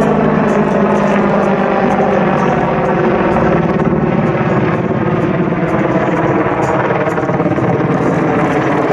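Boeing AH-64D Apache attack helicopter in flight: a steady, loud sound of its rotors and twin turboshaft engines.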